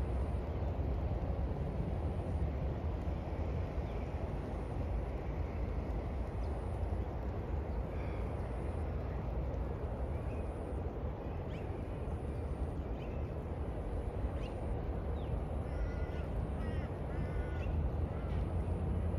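A steady low rumble with several short bird calls over it, most of them in the second half.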